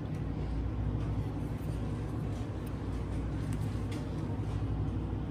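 Steady low rumble of shop room tone, with a few faint ticks.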